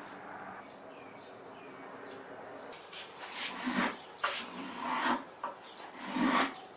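Small hand plane cutting along the edge of a hardwood blank: three strokes of just under a second each, starting about three seconds in, each a dry rasp of blade on wood.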